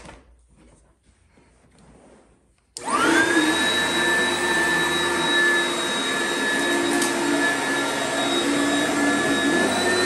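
A click, then about three seconds in an Oreck XL upright vacuum is switched on: its motor spins up in a fraction of a second to a steady high whine and keeps running on the carpet.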